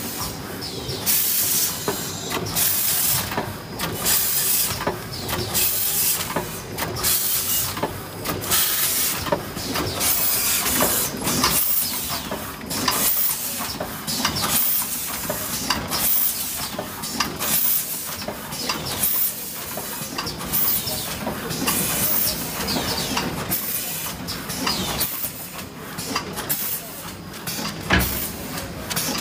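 Automatic premade pouch packing machine running: sharp hisses of air repeating about once a second, from its pneumatic cylinders and valves as the stations cycle, over the steady running of the mechanism.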